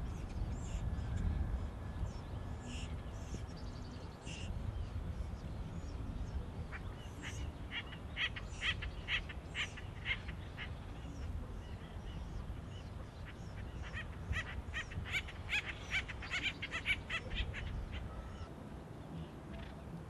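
Acorn woodpeckers calling in two bouts of rapid, harsh repeated notes, the first a little past a third of the way in and the second past two thirds, with a few fainter calls earlier, over a steady low rumble.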